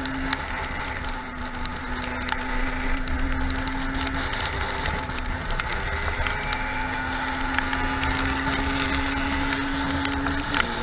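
50cc two-stroke dirt bike engine running at a steady pitch while riding, easing off briefly around the middle and dropping in pitch near the end. A constant crackling runs over it.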